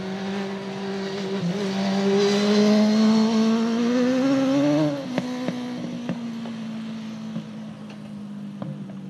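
Dirt-track race car engine accelerating, its pitch rising and getting louder, then backing off suddenly about five seconds in to a steadier, quieter drone. A few sharp clicks follow.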